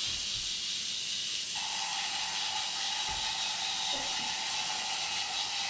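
Steady hiss, joined about a second and a half in by the even whine of a K'nex roller coaster's small electric chain-lift motor starting up and running, with a couple of faint knocks.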